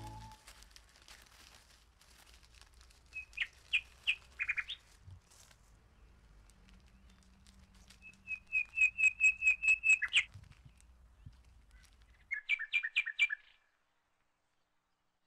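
A bird chirping in short runs of quick, clear, high chirps: a few about three seconds in, a fast run of about ten between eight and ten seconds in, and another short run near the end.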